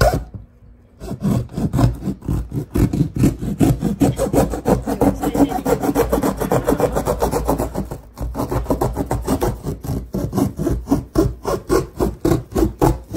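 A hand rapidly scratching and rubbing the side of a cardboard box, about five or six strokes a second, after a single knock at the start.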